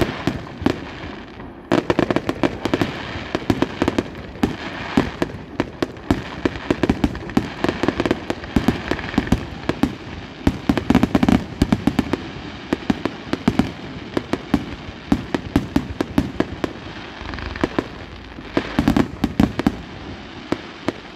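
Aerial fireworks display: shells bursting in quick succession, a dense barrage of bangs and crackling, with heavier volleys around two seconds in, in the middle, and near the end.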